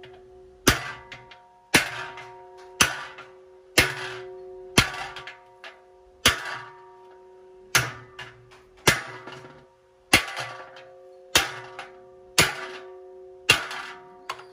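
Hammer blows on a steel punch held against the cast aluminium handle of a large aluminium pot, about one sharp metallic strike a second. Each blow is followed by a brief ringing.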